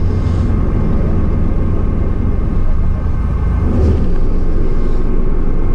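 Steady low rumble of a fishing boat's engine running.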